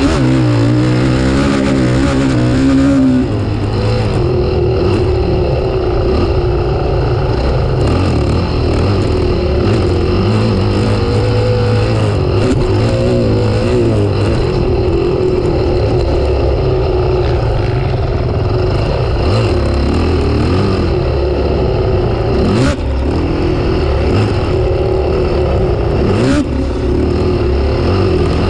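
Motocross bike engine running hard, its pitch rising and falling as it is revved and let off, steadier through the middle. Two short sharp knocks come in the last few seconds.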